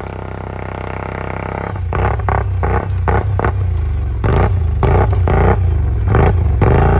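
A quad bike's engine running steadily, then revved in rapid repeated surges, about three a second, as the ATV pushes through deep snow.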